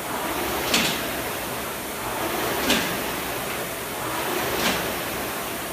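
Air-resistance rowing machine's fan flywheel whooshing through a hard sprint. Each drive stroke brings a short, sharp swell of air noise, three strokes about two seconds apart.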